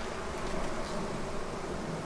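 Steady hum of a honeybee colony buzzing over an opened hive.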